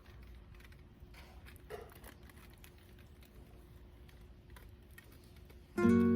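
Faint campfire crackle of scattered small pops and ticks from burning wood. Loud music with held notes starts abruptly near the end.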